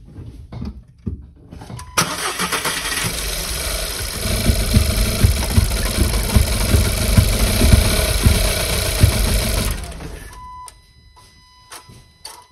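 Volkswagen Caddy engine cranked on its starter for about eight seconds with one cylinder's plug lead off to check for spark, turning over unevenly. It starts suddenly and cuts off, and a faint steady beep follows near the end.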